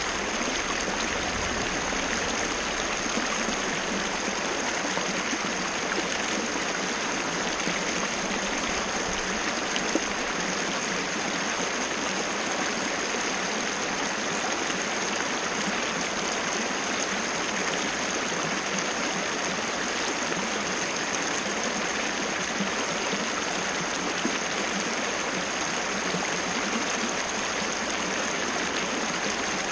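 Water cascade: a small waterfall's water rushing and splashing in a steady, unbroken wash, with a thin, steady high-pitched tone running along above it.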